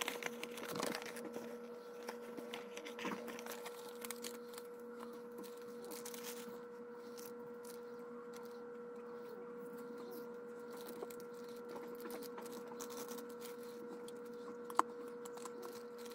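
A folded paper rules sheet rustling and crinkling as it is handled, then sparse small clicks of game tokens moved in a hand, with one sharp click near the end. A steady hum runs underneath.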